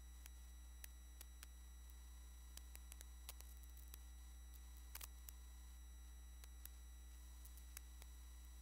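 Near silence: a steady low electrical hum, with a few faint computer-mouse clicks, two close together about five seconds in.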